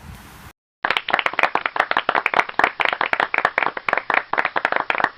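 Hands clapping: a small group applauding with fast, irregular claps that start abruptly about a second in, after a brief silence.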